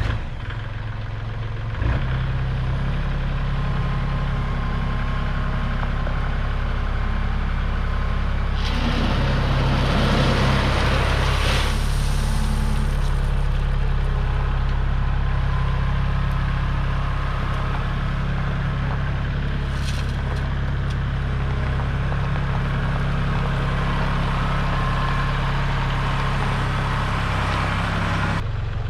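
Kubota compact tractor's diesel engine running steadily while its front loader scoops crushed stone from a pile. About nine to thirteen seconds in comes a loud burst of gravel crunching and scraping as the bucket digs in.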